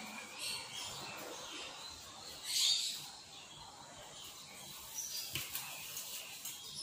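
Thin black plastic bag crinkling in short bursts as hands work at its knot, with one louder rustle a little before halfway through.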